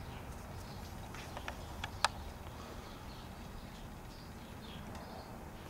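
Low, steady background hum with a few small clicks about one and a half to two seconds in, the last one the sharpest.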